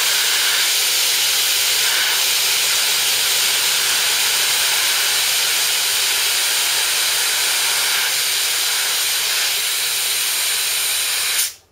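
Compressed air hissing steadily out of a belt-drive workshop air compressor's tank as it is drained through the valve by the pressure gauge, cutting off suddenly near the end. The motor does not cut back in: starved of power on a long extension cord, it has tripped its thermal overload.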